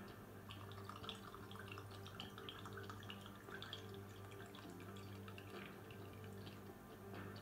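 Red wine poured from a decanter into a wine glass: a faint trickle with small splashes of liquid, over a low steady hum.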